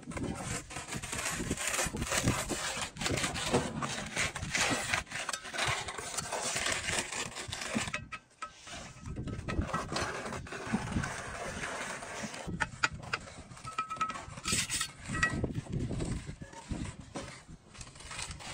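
Steel trowel scraping and spreading cement mortar on concrete blocks, with repeated scrapes and light knocks, briefly pausing about eight seconds in.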